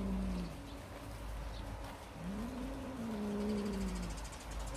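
A cat growling low with prey held in its mouth: two long drawn-out moans, one fading just after the start and another about two seconds in. This kind of growl is typical of a cat guarding its catch.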